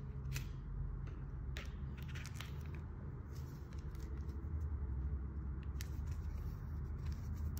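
Unboxing handling noise: paper leaflets and a USB cable being taken out of a silvery plastic bag, giving scattered rustles and short clicks over a steady low rumble.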